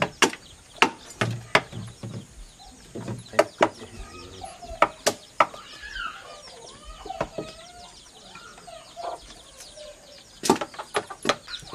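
Hand woodcarving: a bolo knife chopping into wood blocks and a mallet striking a chisel, giving sharp knocks at irregular intervals that pause for a few seconds in the middle and pick up again near the end. Birds call in the background through the pause.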